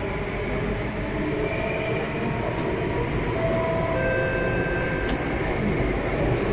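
Alstom Metropolis C830 metro train pulling away from a station, heard from inside the carriage: steady running rumble that slowly gets louder, with faint electric whining tones from the traction equipment that change pitch a few times.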